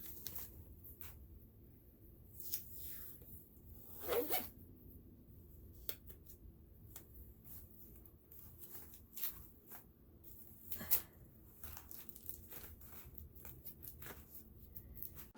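Quiet, scattered clicks and short scrapes of laminate flooring and underlayment being handled and shifted into place. One louder squeaky scrape comes about four seconds in, and a sharp click near the end.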